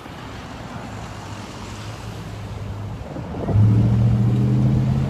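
Cars and trucks of a parade passing on the road. About three and a half seconds in, a loud, low, steady droning tone starts and becomes the loudest sound.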